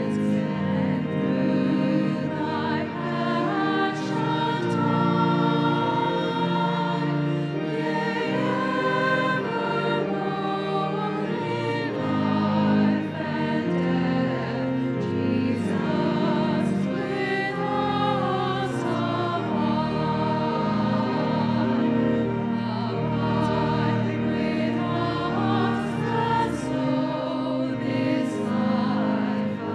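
Congregation and choir singing a hymn with pipe organ accompaniment, the notes held and changing steadily.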